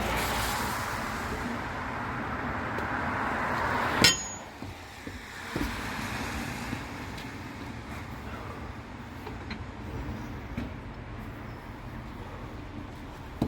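A steel wheel brace clanging against a van's wheel nuts as they are undone: one sharp metallic clang about four seconds in and a few lighter clinks, over a steady hum of road traffic.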